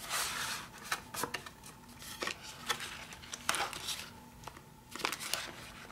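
Cardboard and plastic handling: a thin cardboard box slid open and an anti-static plastic bag of electronic components picked up and crinkled, giving scattered rustles, scrapes and light clicks.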